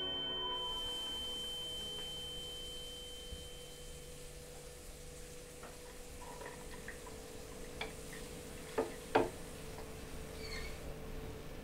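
Quiet kitchen with a faint steady hum; a high held tone fades away over the first few seconds. Near the end come a few sharp clinks of crockery at a kitchen cupboard, the loudest two close together about nine seconds in.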